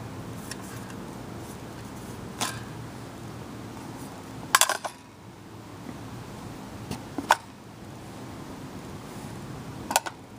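Sharp metallic clinks and clacks of ammunition and a metal ammo can being handled, four of them spaced a few seconds apart, the loudest a quick double clack about halfway. A low steady hum runs underneath.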